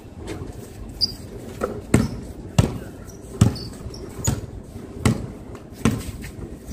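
Basketball bouncing on a concrete court: a run of sharp bounces, a little under one a second, somewhat uneven.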